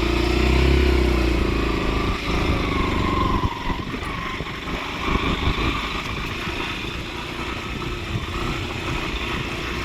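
Motorcycle engine running while riding along, louder in the first couple of seconds, then steadier with uneven rattling.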